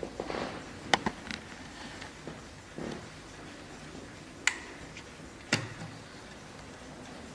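Vintage Warmink Dutch mantel clock: about half a dozen sharp clicks and light knocks at uneven intervals, not a steady tick.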